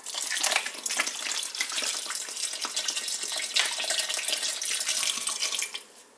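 Bottled spring water poured steadily into a pot of soup, a continuous splashing rush that stops near the end.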